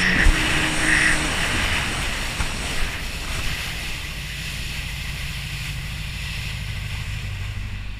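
Yamaha jet ski engine running under way, with water rushing past the hull and wind on the microphone. About three seconds in it grows quieter and settles to a lower, steady engine note.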